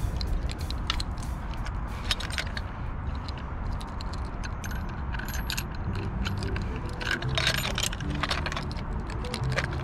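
Scattered metal clicks and jangles of a fish lip-grip tool and a handheld digital scale being handled.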